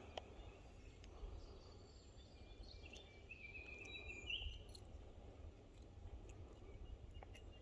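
Faint outdoor background: a low rumble with a short bird call about three seconds in.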